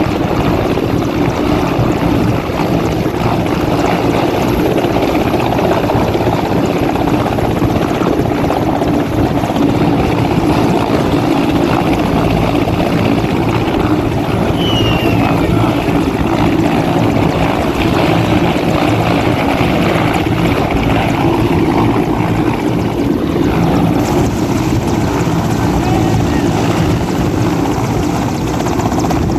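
Helicopter running close by, its rotor and engine a steady loud din. About halfway through there is a short high whistle that falls in pitch.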